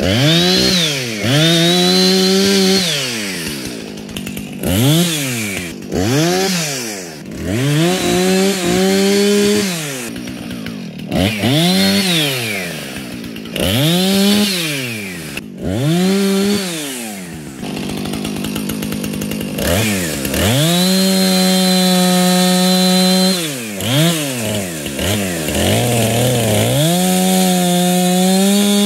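Husqvarna two-stroke chainsaw cutting brush and saplings. It is revved to full speed in short bursts a second or two long and drops back between cuts, with a longer steady full-throttle cut of about three seconds about two-thirds of the way through.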